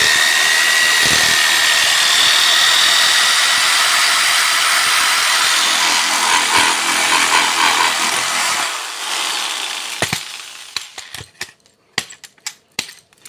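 Electric jigsaw cutting wood, running steadily with a high whine, then winding down about nine seconds in. A few sharp knocks and clicks follow near the end.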